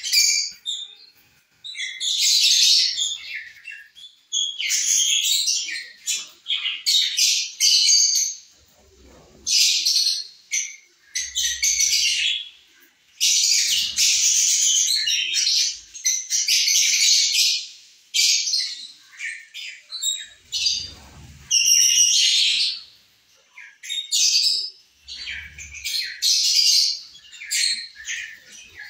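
A flock of lovebirds chattering and screeching in shrill, high-pitched bursts that come and go every second or two with brief lulls between.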